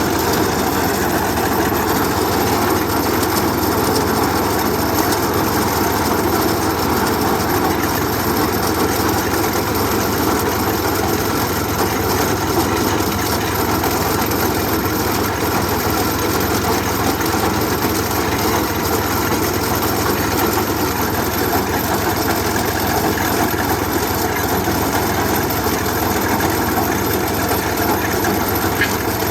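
An engine running steadily, with no pauses or changes.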